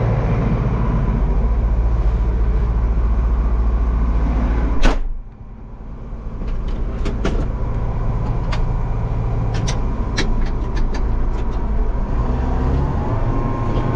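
Farm tractor engine running steadily, heard from the cab. About five seconds in there is a sharp click and the sound drops off abruptly, then the engine sound builds back up with scattered light clicks.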